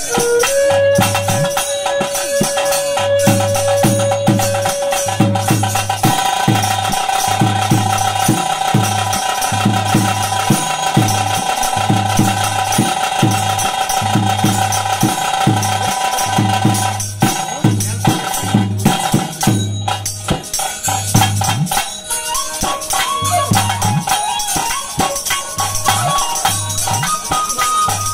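Bhuta kola ritual music: a held, droning melody line over a steady drum beat about once a second, with constant jingling percussion. The melody shifts to a higher note about three quarters of the way through.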